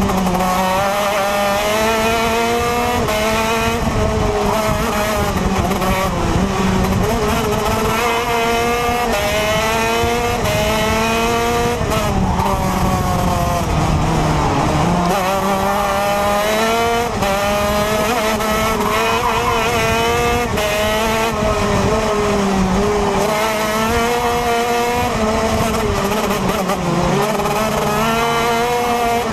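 TM 125cc two-stroke KZ2 shifter kart engine at racing speed, heard from on board, its pitch repeatedly climbing and falling with throttle and gear changes, with a deep drop about halfway through as the kart slows for a corner.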